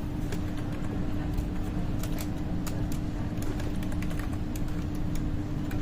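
Light, irregular tapping clicks, like keys or a screen being tapped, over a steady low hum and room rumble.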